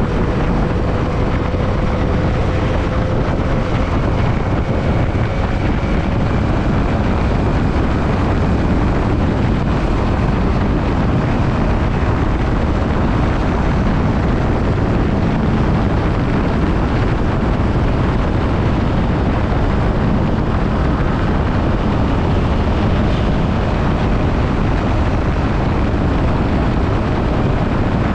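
Motorcycle riding at steady speed: a Yamaha WR155's single-cylinder engine running under heavy wind rush on the microphone, with a faint engine whine that slowly rises in pitch in the first few seconds.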